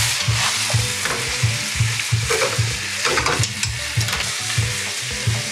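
Shredded flatbread and bean sprouts sizzling in a hot wok as they are stir-fried with a little liquid, with occasional sharp clicks of the spatula.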